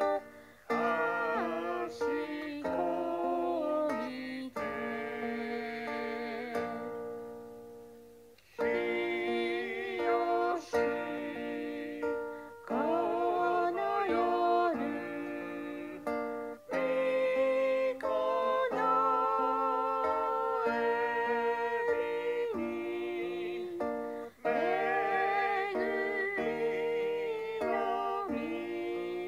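A hymn sung with vibrato over a plucked-string accompaniment, played back from a recording on an iPad. The sung phrases break off briefly several times.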